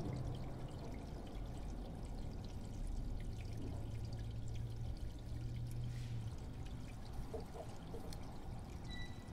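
Steady rushing background noise, like flowing water, over a low steady hum.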